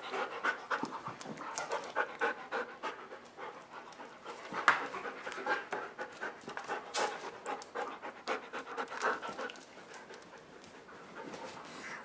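Dogs, a German Shepherd and a Siberian Husky, panting fast and irregularly as they wrestle in play; the panting eases off and gets quieter about ten seconds in.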